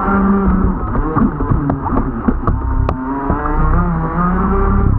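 RC jet boat's motor running under changing throttle, its whine holding a pitch and then gliding up and down, with a few sharp clicks mixed in.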